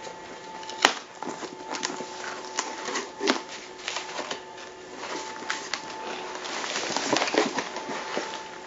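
A cardboard box of body armor being opened and unpacked: irregular clicks, crackles and rustles of tape, cardboard and packaging, with one sharp click about a second in.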